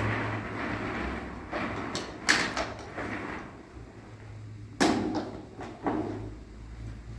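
A few sharp knocks or clatters, the loudest about two and five seconds in, over a rushing noise that fades away in the first few seconds.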